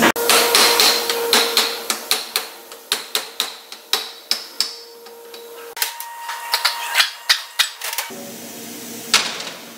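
Hammer tapping the ring gear of a Corporate 9¼ differential to drive it off the differential carrier: a long run of sharp metallic taps at irregular spacing, about one to three a second.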